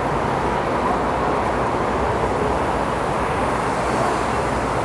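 Steady city traffic noise: a continuous, even rumble and hiss of road vehicles.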